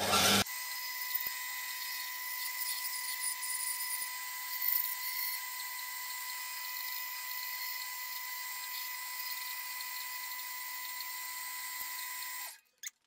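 Bandsaw cutting a wooden board: a brief loud rush at the start, then a steady high whine over a hiss of the blade in the wood, which cuts off abruptly near the end.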